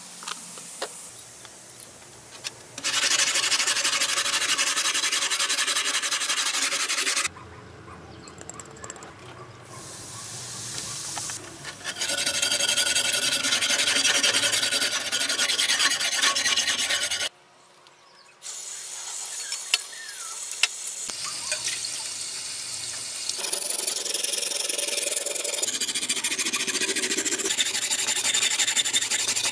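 Hand wire brush scrubbing the rusty steel blade of an antique masonry trowel with fast back-and-forth strokes, scouring off rust, in several long stretches broken by short quieter gaps. Before the first stretch there is a fainter hiss of foam fizzing on the blade.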